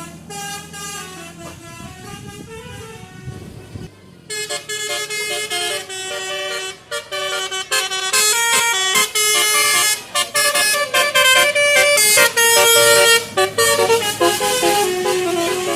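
Bus "telolet" horn, a set of multi-tone air horns, playing a quick tune of separate notes; it is quieter at first and grows much louder about four seconds in.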